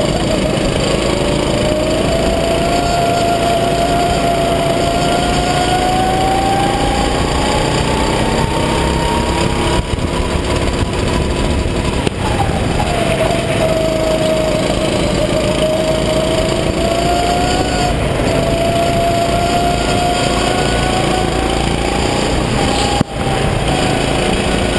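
Rental go-kart engine running hard on track, heard from the driver's seat. Its note climbs steadily with speed, drops sharply about twelve seconds in as the throttle comes off for a corner, then climbs again, with a brief dip near the end. Wind and track noise run underneath.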